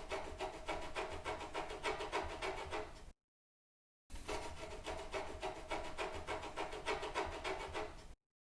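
Scratching sound effect: quick, repeated scratching strokes in two runs of about four seconds each, broken by a second of dead silence just after the three-second mark.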